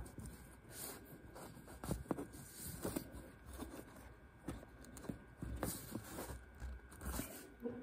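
Faint, irregular rustles, scrapes and light clicks of hands handling a braided cord and drawing a half blood knot tight around a metal eye.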